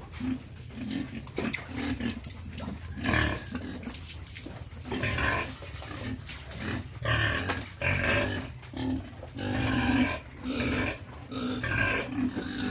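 A group of young pigs, about three months old, grunting and squealing in short, irregular calls, several of them overlapping.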